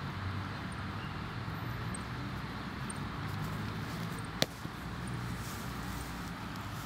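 Steady low outdoor rumble, with one sharp knock about four and a half seconds in: a football kicked on grass.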